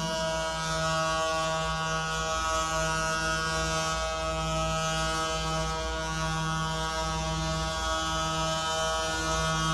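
Hockey goal horn sounding one long, steady blast.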